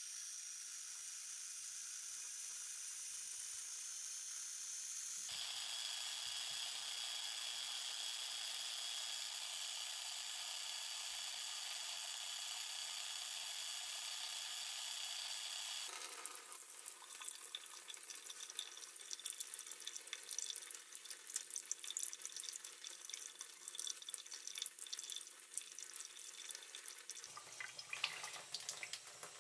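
A steady hiss through the first half. From about halfway, tap water runs and splashes unevenly with many small crackles as the acrylic earring pieces are washed under it.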